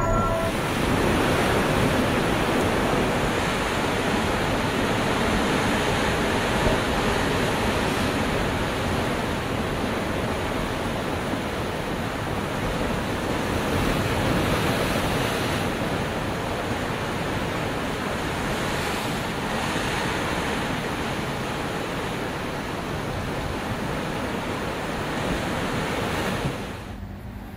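Ocean surf breaking and foaming over a rocky shore: a steady, loud rush of waves that cuts off near the end.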